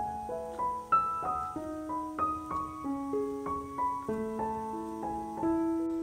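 Background music: a gentle piano melody with chords, one note after another at an even, steady pace.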